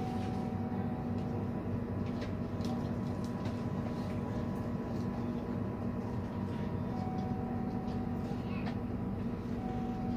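Passenger train running with a steady low hum and rumble, a couple of steady whining tones above it and faint scattered clicks.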